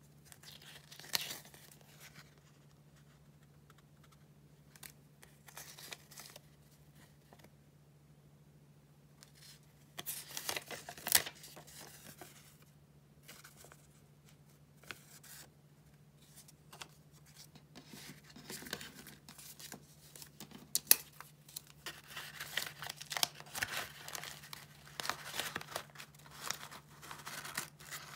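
Paper and sticker sheets handled close to the microphone: sheets shuffled, flipped and slid against one another in scattered rustles and crinkles. The handling grows busier in the last few seconds, over a faint steady low hum.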